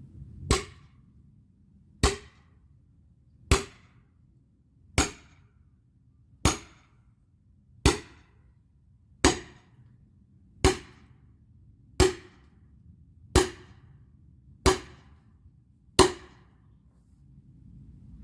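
Axe chopping firewood: twelve sharp blows on the wood, evenly paced about one every second and a half.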